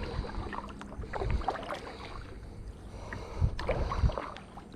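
Kayak on moving river water: paddle splashes and water slapping and trickling around the hull, with a few low thumps about a second in and again near the end.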